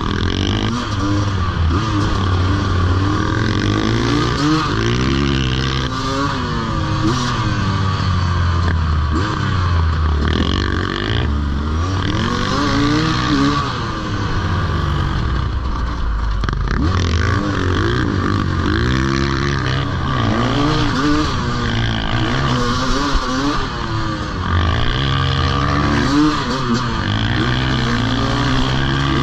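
Sherco two-stroke enduro motorcycle engine heard from the rider's own bike on a dirt trail, revving up and falling back again and again as the throttle opens and closes and the gears change.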